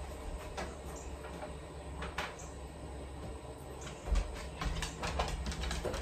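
Light clicks and knocks of small household items being picked up and set down on a wooden coffee table, over a steady low rumble.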